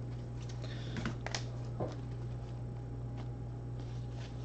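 A few scattered light clicks and taps, about five in all, over a steady low electrical hum.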